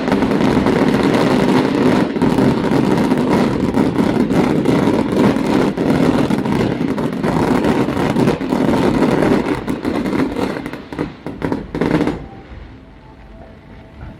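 Fireworks going off in a dense, continuous barrage of bangs and crackling, which thins into separate pops and stops about twelve seconds in.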